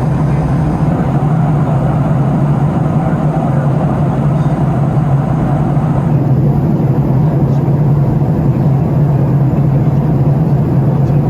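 Steady loud drone inside the cabin of a Boeing 737-700 with its jet engines running: a constant low hum over a rushing noise.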